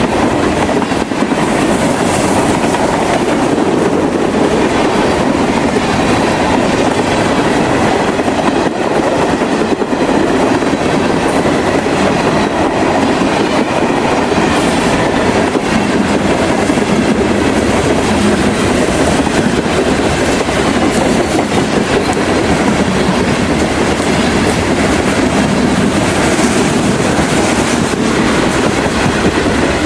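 Freight cars of a long train rolling past close by: covered hoppers, gondolas and tank cars, their steel wheels rumbling and clattering steadily on the rails.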